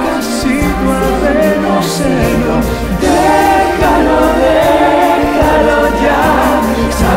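Pop-rock song from a stage musical: several voices singing together over a full band.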